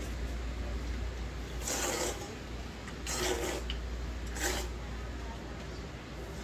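A person slurping cold soy-milk noodles (black-bean kongguksu), three hissing slurps a second or so apart, the second one the longest, over a steady low hum.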